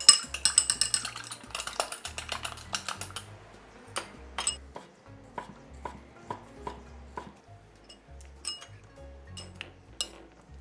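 Metal chopsticks beating eggs in a glass bowl, a quick run of clinks lasting about three seconds. Then a kitchen knife slicing through a round ham and knocking on an end-grain wooden cutting board about every half second. Near the end come a few light clinks of chopsticks against the glass bowl.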